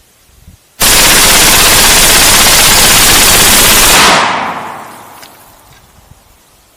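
FN P90 5.7×28mm submachine gun firing one long full-auto burst of about three seconds that starts and stops abruptly, followed by a fading echo.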